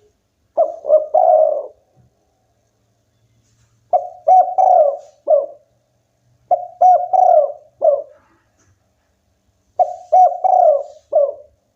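Spotted dove (tekukur) cooing: four repeated phrases of three or four coo notes each, one about every three seconds.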